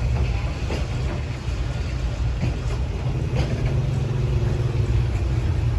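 D19E diesel-electric locomotive engine running with a deep steady rumble, with a few sharp metallic knocks.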